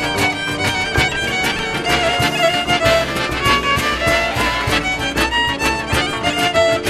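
Hungarian folk band playing an instrumental dance tune: a fiddle leads the melody over a quick, even accompaniment of struck strings.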